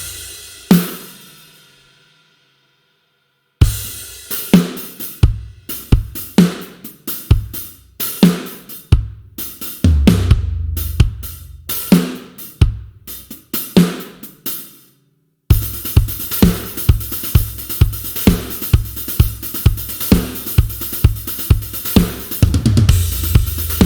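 Sampled rock drum kit from the GetGood Drums "One Kit Wonder Aggressive Rock" Kontakt library, playing kick, snare, hi-hat and cymbals. A hit rings out into a short silence, then a groove plays, stops about fifteen seconds in, and a faster, busier groove follows.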